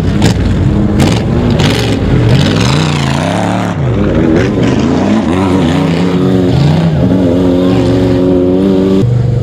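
Off-road race vehicles (a race pickup, then a VW Beetle-bodied off-road car) revving hard as they drive past on a dirt course. The engine pitch rises and falls repeatedly with throttle, then holds steadier, and the sound changes abruptly near the end.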